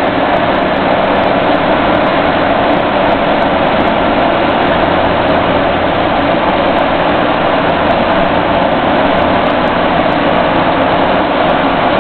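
Engine and road noise heard inside the cabin of a military convoy vehicle on the move: a loud, steady drone that does not change.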